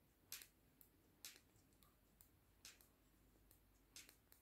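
Knitting needles clicking faintly, a few separate clicks about a second apart, as stitches are worked.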